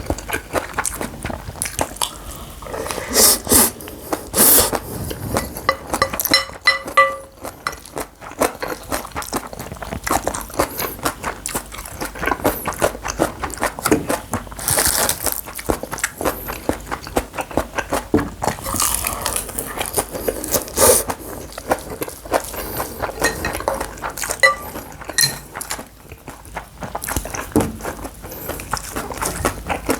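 Close-up eating sounds: chewing and biting, with a spoon clinking and scraping against the bowl of bibimbap, dense clicks and knocks throughout and a few short ringing clinks.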